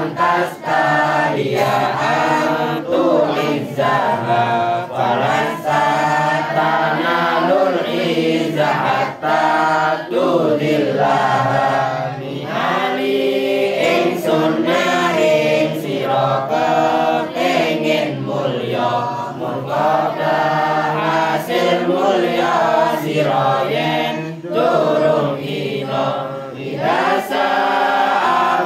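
A group of young voices chanting together in unison from booklets, a melodic devotional recitation with short pauses between phrases.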